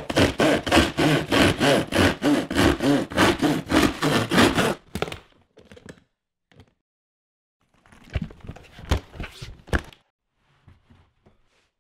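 Fast, even rubbing or scraping strokes, about four a second, for about five seconds, then stopping. A few soft scrapes follow, then a short cluster of rubs and knocks a little before the end.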